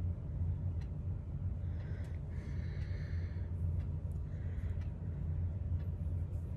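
A person's soft breaths, a few of them in the middle of the stretch, over a steady low hum.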